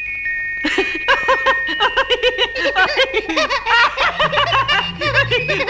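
Cartoon voice giggling and snickering in quick bursts from about a second in, over light music that picks up a bass line about four seconds in.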